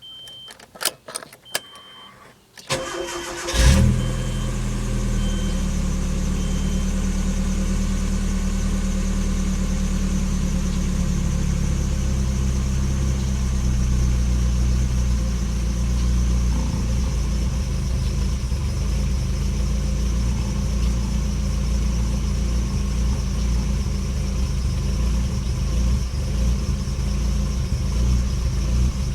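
A few clicks and a short repeating beep, then the 1996 Nissan pickup's engine cranks briefly and catches about three and a half seconds in. It then idles with an uneven, pulsing low note: a rough idle.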